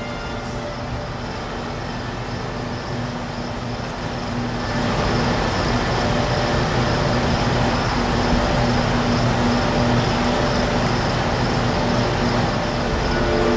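Steady mechanical hum with a noisy rumble that grows louder about four and a half seconds in, like the running of an electric train or station machinery.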